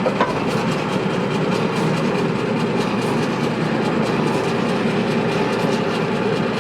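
Workshop machinery running steadily: a loud, even rattling hum with no pauses.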